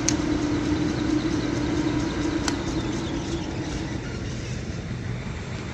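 Electric motor hum from the Clausing-Colchester lathe's controls being run, with a switch click at the start and a panel button click about two and a half seconds in. The hum fades away about a second after the second click, as the motor shuts down.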